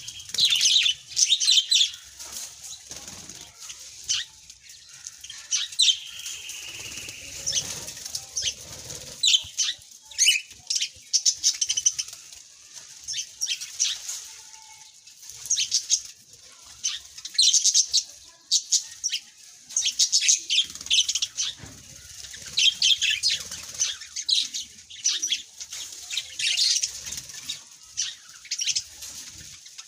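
Many small birds chirping, with rapid high-pitched chirps coming in quick clusters one after another.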